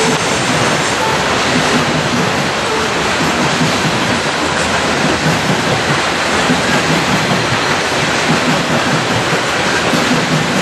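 Coal hopper cars of a freight train rolling past: a steady, loud noise of steel wheels running on the rails, even throughout.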